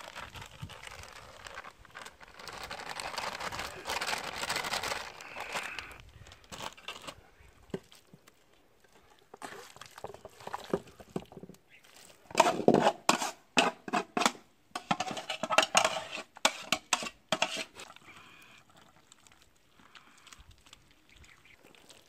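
Hands kneading and squeezing soaked cattle feed mash in a steel bowl: wet squelching and slapping in quick, irregular bursts, loudest from about twelve to eighteen seconds in. Before that, a softer hissing rustle as the feed is poured and stirred.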